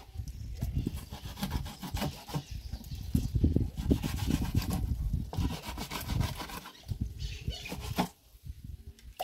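Knife blade scraping and cutting against a wooden board in quick, irregular rubbing strokes as a fish is filleted and skinned. The strokes ease off about a second before the end.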